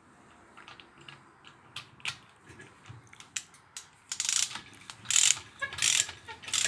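Socket ratchet wrench being worked back and forth on a bolt. It starts with scattered light clicks, then gives several fast, loud rasps of the pawl in the last two and a half seconds.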